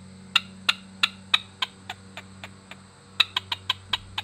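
P.S. Olt B10 bellows squirrel call tapped against the palm, giving a run of sharp barks about three a second that start loud and fade. After a short pause near the three-second mark a new loud run begins. This is the squirrel alarm-call cadence: aggressive at first, then tapering.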